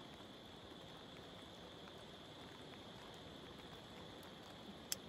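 Faint, steady hiss of light rain at night, over a steady high-pitched drone, with one sharp click near the end.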